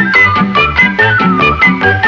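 Background music: an upbeat tune with a steady, bouncing bass line and a melody over it.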